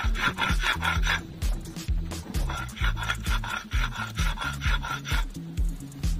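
Stone roller grinding wet taro leaves into a paste on a flat stone grinding slab (shil-nora). The stone rasps back and forth in quick, repeated strokes.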